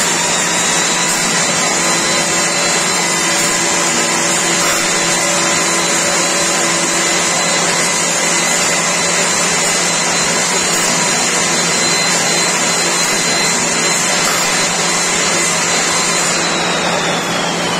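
A fully automatic 200 ml blow molding machine running: a loud, steady mechanical whine over hiss, with several high tones held at an even pitch. Near the end the highest whine begins to fall in pitch.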